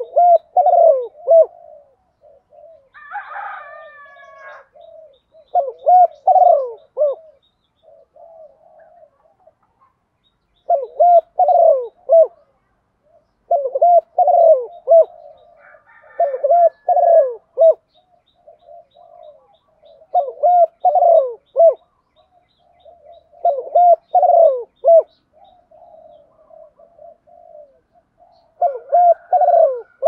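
Spotted dove cooing: loud phrases of low, rounded coos repeated every few seconds, with softer coos in between. A brief higher call breaks in about three seconds in and again around sixteen seconds.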